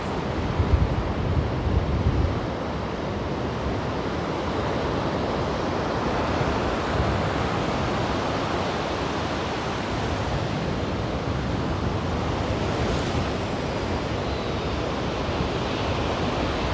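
Ocean surf breaking and washing up the beach, a steady rushing noise. For the first two seconds or so, wind buffets the microphone with low gusty rumbles.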